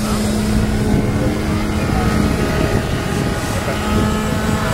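Electric motor of a radio-controlled model F-14 jet in flight, a steady hum, over wind rumble on the microphone.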